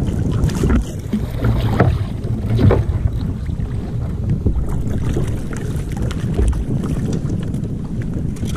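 Wind buffeting the action camera's microphone in a steady low rumble, with water sloshing around a kayak at sea.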